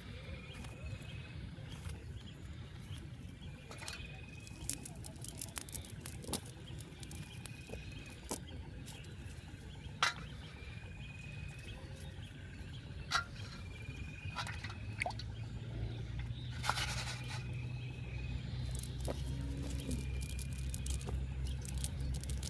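A bird's short high call repeating every couple of seconds, with scattered sharp clicks and splashes over a low steady rumble that grows louder about two-thirds of the way through.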